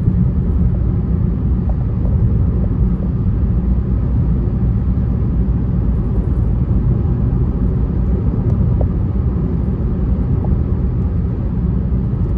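Car cruising on an expressway, heard from inside the cabin: a steady low rumble of road and engine noise.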